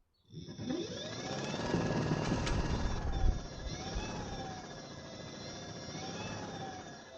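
Homemade lawnmower's 72-volt brushless washing machine motor starting up with a rising whine, then running with its pitch wavering up and down over a heavy low rumble from the spinning blade. A single sharp click about two and a half seconds in.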